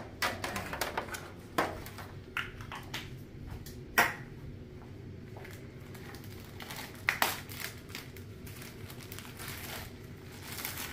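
Kitchen handling noises: scattered clicks, knocks and crinkling as a disposable aluminium foil pan and a plastic bag of flour tortillas are handled. The sharpest knock comes about four seconds in, and two quick knocks follow about seven seconds in.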